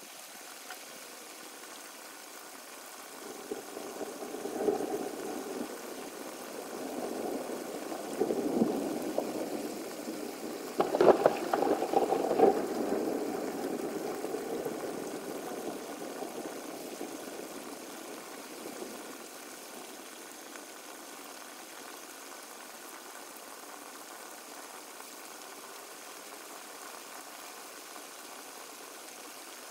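Thunder rumbling: it builds from about three seconds in, peaks with a crackling clap around eleven seconds and rolls away by about nineteen seconds, over a steady background hiss.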